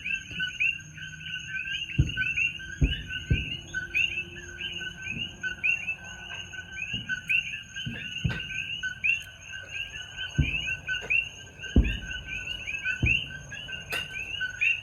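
A dense chorus of coqui frogs chirping without a break. Several low, distant fireworks booms sound at irregular intervals over it.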